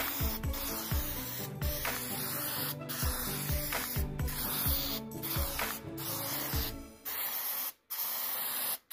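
Aerosol can of Krylon hammered-black spray paint hissing steadily as it sprays onto foam, with short breaks in the spray, the longest near the end. Background music with a low beat runs underneath until about two-thirds in.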